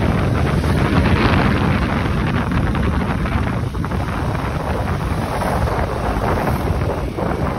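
Wind buffeting the microphone: a loud, continuous rushing noise that rises and falls without a break.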